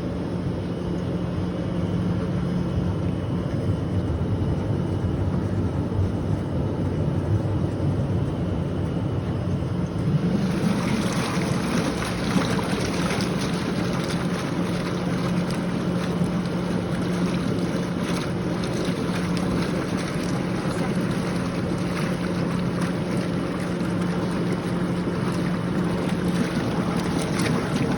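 Drum-type vegetable washing machine running: a steady motor hum, joined about ten seconds in by a loud, even rush of water that continues.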